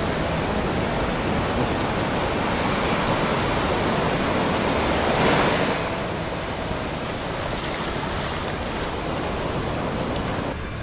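Ocean surf breaking and washing up over the sand. One wave swells to the loudest point a little past halfway, then the wash eases off.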